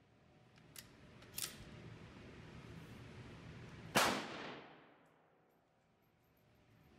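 A single rifle shot from a handloaded round about four seconds in, with a reverberating tail that dies away over about a second. It is preceded by two small sharp clicks.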